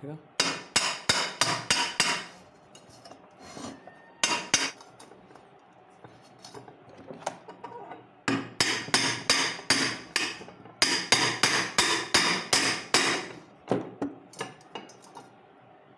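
Light hammer taps on a ceiling fan's motor casing to knock it open, in quick runs of about four to five ringing strikes a second with pauses between.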